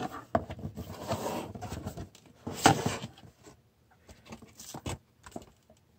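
Rustling and light clicks of cardboard and plastic packaging being handled as a retail box is opened. There is one louder rustle about two and a half seconds in, then only sparse small clicks.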